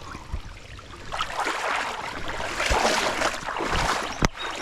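Water splashing as a hooked bass thrashes at the surface during the fight, in a rough, irregular run of splashes, with a sharp click near the end.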